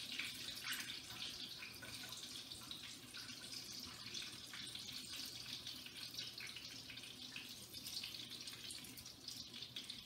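Breaded chicken rolls frying in olive oil in a pan: a steady sizzle with small crackles.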